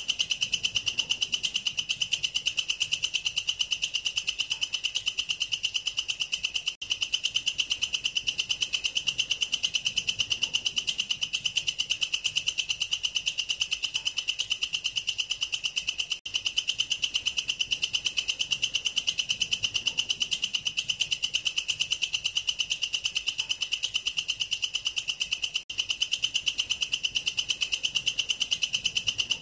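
Katydid (belalang kerek, family Tettigoniidae) stridulating: a loud, high-pitched, continuous song made of fast, evenly repeated pulses, broken only by a tiny gap about every nine and a half seconds.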